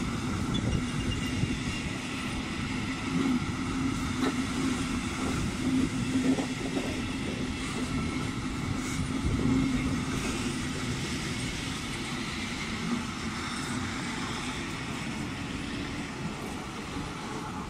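Passenger train coaches rolling past on the rails: a steady rumble of wheels on track with faint higher tones, growing a little quieter near the end as the last car goes by.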